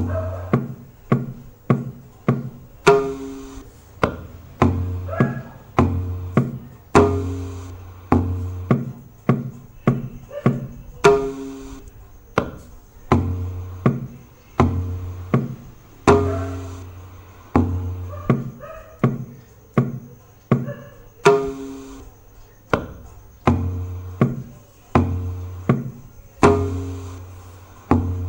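Tabla playing the 14-beat Dhamar taal as a repeating loop, about two strokes a second. Deep ringing bass strokes on the bayan alternate with sharper pitched strokes on the dayan.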